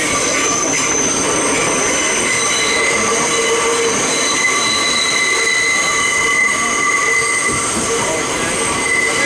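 Steel wheels of an R62A New York City subway car squealing steadily with several high tones sounding together, over the rumble of the moving train, heard from inside the car.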